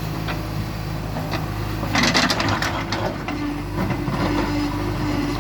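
JCB 3DX backhoe loader's diesel engine running steadily, with a burst of clattering and crunching about two seconds in that lasts about a second, as loose material is handled during loading.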